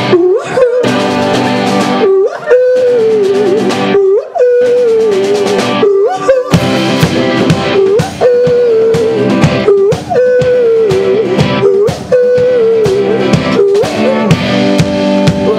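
Indie rock band playing live with guitars and drum kit. A lead melody repeats in short phrases about every two seconds over steady chords and drum beats.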